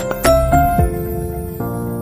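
Gentle instrumental background music: a few struck notes in the first second, then held chords.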